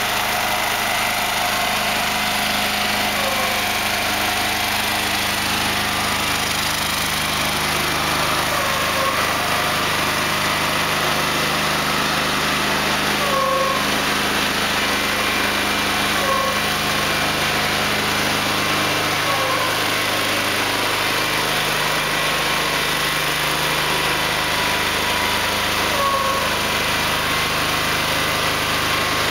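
Engine of a Goldhofer multi-axle heavy-haul transporter running steadily while it moves a bridge segment at walking pace. A short, slightly falling chirp repeats about every three seconds over the engine.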